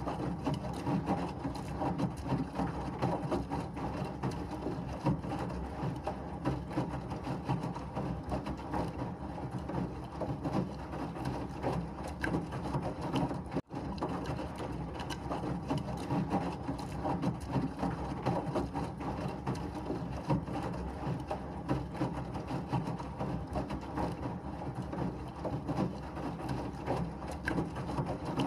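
Washing machine running, a steady churning rumble with a constant busy flutter. A very short drop-out comes about halfway through.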